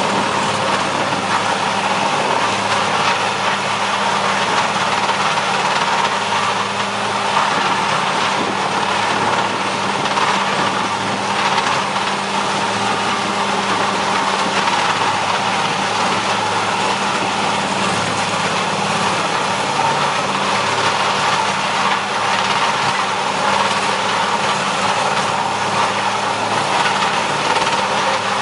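Vermeer HG4000TX horizontal grinder working under load: a steady diesel-engine drone under a dense, continuous rushing noise of wood being ground, with the excavator that feeds it running alongside.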